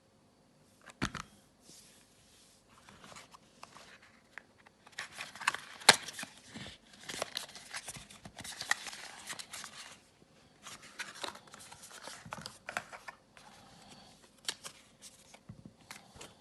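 Packaging being handled and opened close to the microphone: irregular rustling, crinkling and tearing with sharp clicks. One click comes about a second in, the busiest stretch is in the middle with the sharpest click near six seconds, and it thins out after that.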